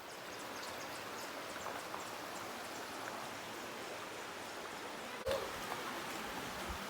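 Steady rushing noise with a sharp click about five seconds in.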